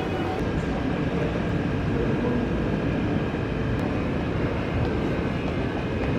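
Steady low rumble of a vehicle in motion, with no distinct events.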